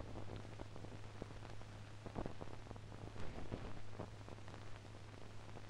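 Surface noise of an old optical film soundtrack: a steady low hum under hiss, with scattered crackles and pops, a few louder ones about two and three seconds in.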